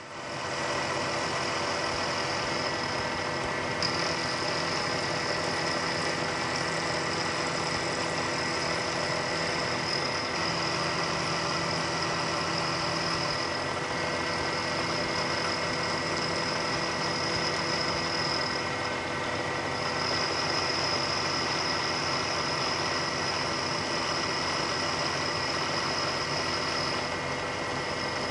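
Milling machine running steadily, its end mill taking a light finishing cut off the face of an aluminum vise jaw. A high whine rides over the motor noise and drops out briefly a few times as the cut goes on.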